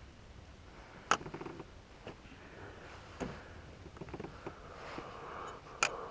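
Sharp clicks and knocks of a fishing rod and reel being handled aboard a kayak: three louder ones about two seconds apart, with a quick run of small ticks after the first. Faint geese honking begins near the end.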